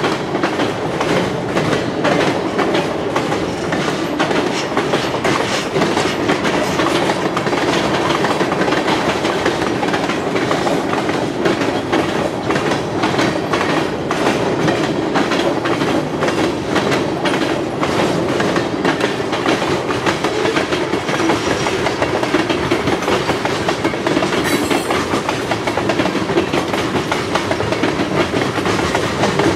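Freight train cars rolling past at steady speed, wheels clicking over the rail joints in a continuous clatter.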